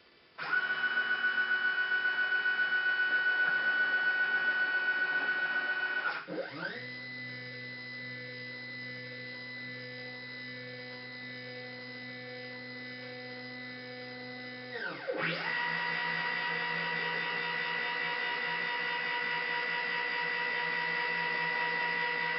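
Stepper motors of a home-built CNC machine whining as it runs moves: a steady high whine with a fast pulse for about six seconds, then a lower tone that glides up in pitch, holds, and glides back down as the axis speeds up and slows. A steady high whine starts again about fifteen seconds in and stops near the end.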